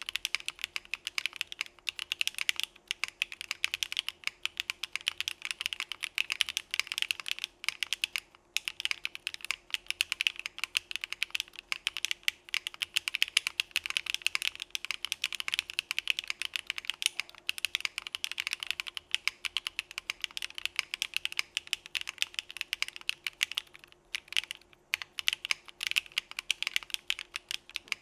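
Continuous fast typing on a Geonworks Frog mechanical keyboard with lubed Sillyworks Hyacinth v2 linear switches in an aluminum plate, with no foam and CRP Desko keycaps. The keystroke clacks come in a dense run, with brief pauses about eight seconds in and again near the end.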